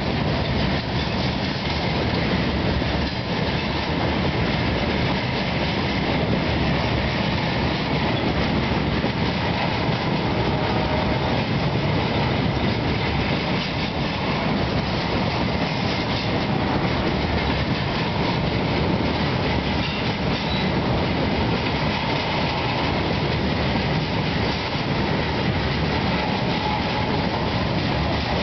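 Freight train of flatcars loaded with steel slabs rolling past at speed: the steel wheels on the rails make a loud, steady rumble that does not let up.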